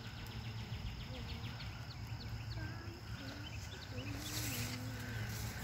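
Roadside outdoor ambience: a rapid series of short high bird chirps over a steady low hum, with faint wavering voices in the distance. A brief rushing hiss comes about four seconds in.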